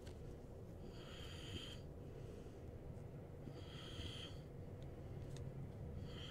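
A man breathing audibly through his nose close to the microphone, a hissy, slightly whistling breath about every two and a half seconds, over a low steady hum.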